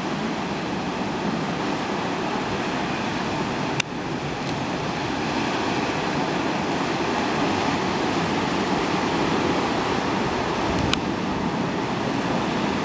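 Steady rush of ocean surf breaking on the shore, with a brief click about four seconds in and another near the end.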